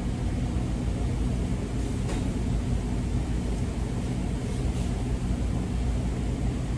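A steady low mechanical hum, with two faint brief hisses about two and five seconds in.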